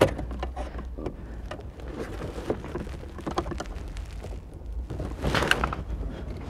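Irregular light clicks, scrapes and rustling as a hand works inside a car's dashboard to undo a mounting screw, with a louder burst of rubbing and clicking about five seconds in.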